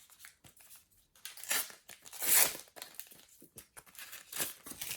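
Sticker packet and paper stickers being handled: a few short rustling, crinkling sweeps, the loudest about two seconds in.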